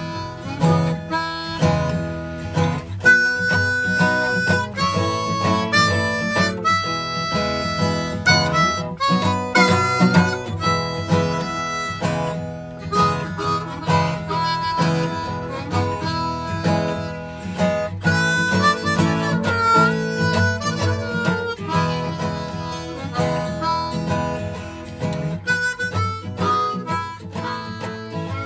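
Blues harmonica playing a melody with notes that bend up and down, over guitar accompaniment.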